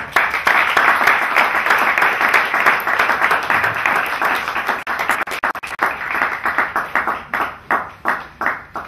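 Audience applauding, dense at first and thinning to separate scattered claps toward the end.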